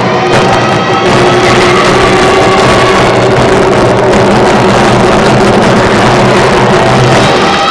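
Loud recorded music with long held notes, the backing track for a baton-twirling routine.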